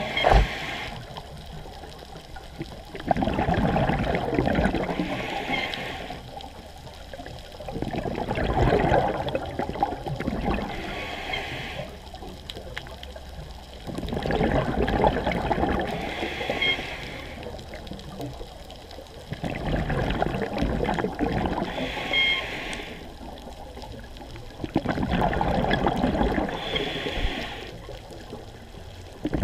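Scuba diver breathing through a regulator: five gurgling rushes of exhaled bubbles, one about every five to six seconds, with a quieter hiss between them.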